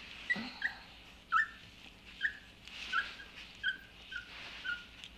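A young puppy squeaking and whimpering: about eight short, high squeaks, each dropping a little in pitch, at uneven intervals.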